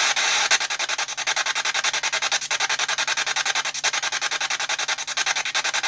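P-SB7 Spirit Box sweeping the FM band: radio static chopped into rapid, even pulses as the tuner steps from station to station. About half a second in, a steady hiss gives way to the chopping.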